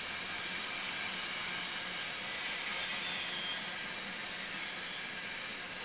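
Freight train of flatcars carrying trash containers rolling past, a steady noise of steel wheels on rail.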